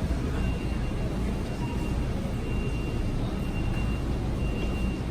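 Steady low rumble of a car on the move, heard from inside the cabin, with a faint high beep that keeps repeating, on and off.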